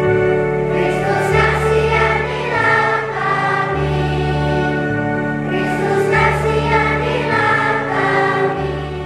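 Children's choir singing a hymn over keyboard accompaniment with sustained bass notes changing about once a second. The voices come in about a second in and die away near the end.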